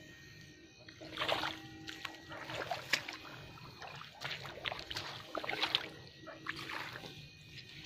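Irregular splashing and swishing of wet grass and shallow water as someone wades and sweeps an eel-fishing pole, with a few sharper splashes, over a faint steady low tone.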